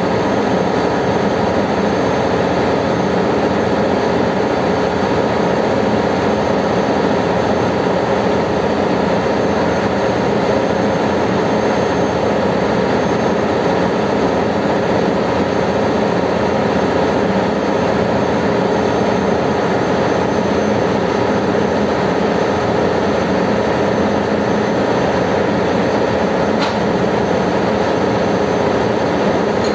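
Steady, loud drone of a ship's engine-room machinery, a constant hum with several steady tones running through it. A single short metallic click near the end.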